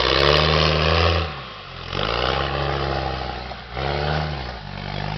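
A 4x4's engine revved hard in four separate bursts, its pitch rising and falling with each one.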